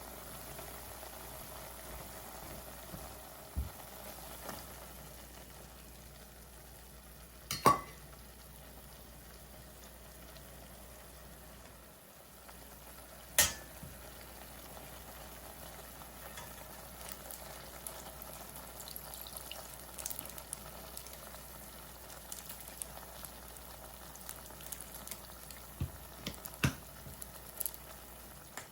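Food cooking on a stove with a steady low sizzle. Several sharp knocks of a utensil against the pan or pot come through, the loudest about eight seconds in and a small cluster near the end.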